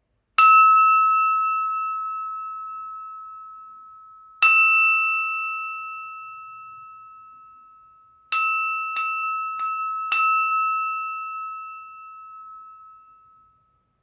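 A crystal glass struck six times, ringing out at one clear pitch after each tap and dying away slowly: two single strikes a few seconds apart, then four quicker taps in a row.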